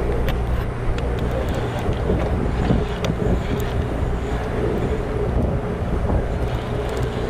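A fishing boat's motor running with a steady drone, under wind buffeting the microphone, with a few faint clicks as a conventional reel is cranked against a hooked bluefin tuna.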